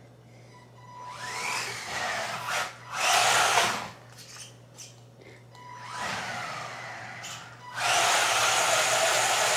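Haiboxing RC truck's electric motor whining as it speeds up and slows down, its pitch rising and falling, with two louder stretches at full throttle, the longer one near the end.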